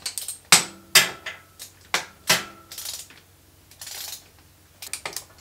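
Sharp metallic clicks and clinks of a hand wrench working the bolts that join the gearbox to the engine, tightening them to torque. They come at irregular intervals, a cluster near the end, and several ring briefly.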